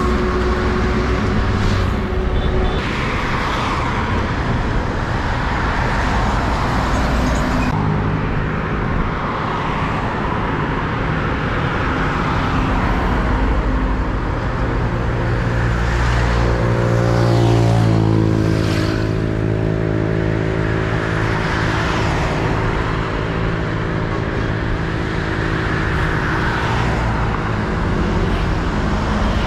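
Road traffic of heavy diesel trucks and cars passing by: steady engine and tyre noise. About halfway through, one engine's note climbs as it speeds up.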